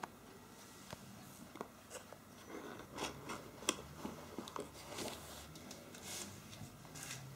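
Faint handling sounds of a smartphone being lifted out of its cardboard box: scattered light clicks, scrapes and short rustles, the sharpest click a bit before four seconds in.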